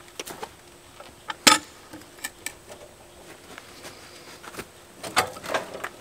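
Scattered knocks and clicks of a steel cant hook being handled and set against a big gum log on a sawmill bed, the sharpest knock about a second and a half in and a few more near the end.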